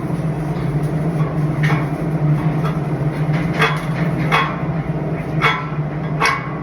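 A few separate sharp metal strikes with a short ringing tone, five in all and unevenly spaced, over a steady low machine hum: a hammer knocking on welded steel in a welding shop.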